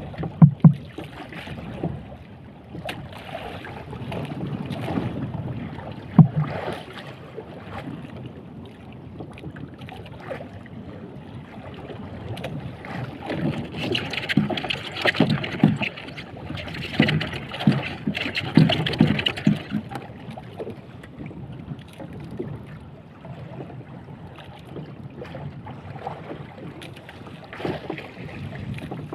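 Wind buffeting the microphone and waves slapping against the hull of a small boat on choppy sea, with a few sharp knocks, the loudest near the start and about six seconds in. The wind and water grow louder and rougher for several seconds in the middle.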